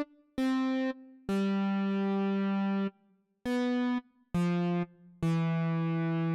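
Background music: a slow melody of single electronic keyboard notes, each held at an even level and then cut off sharply, with short gaps between; about five notes, the longer ones lower in pitch.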